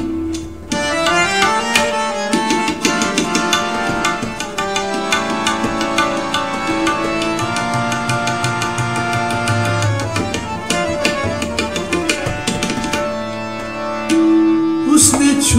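Instrumental passage of a ghazal: tabla playing a dense rhythm under a sustained melodic accompaniment.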